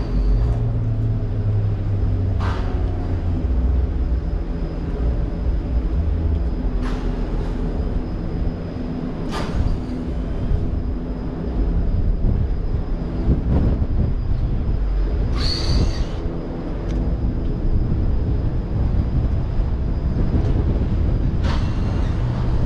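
City street traffic: a heavy vehicle's engine runs with a steady low rumble throughout. A few short, sharp sounds cut in every few seconds, the most prominent about two-thirds of the way through.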